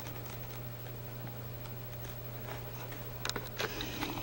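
Fingers handling a motorcycle helmet's plastic visor and the vinyl shade on it: faint taps, then a couple of sharp clicks and a brief rubbing noise near the end, over a steady low hum.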